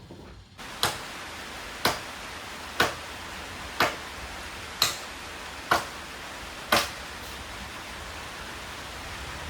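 Washing machine: after its motor hum stops, a steady hiss like running water sets in, with seven sharp clicks about a second apart, then the hiss continues alone.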